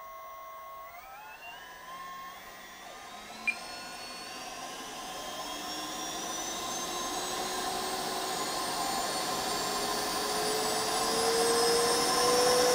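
A 50 mm electric ducted fan in an RC jet, spooling up slowly on a bench test as the throttle is eased toward about 63%. Its whine climbs steadily in pitch and grows louder throughout, with a single short click about three and a half seconds in.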